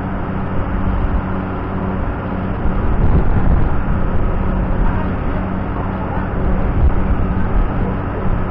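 Loud, steady machinery drone with a low hum underneath, noisy like being inside an engine room.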